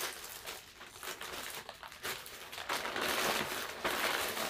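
Plastic packaging bags crinkling as they are handled and pulled open, louder and busier in the second half.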